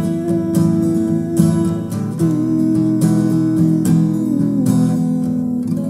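Acoustic guitar strummed in a steady rhythm, with a long held melody note above the chords that steps down in pitch twice.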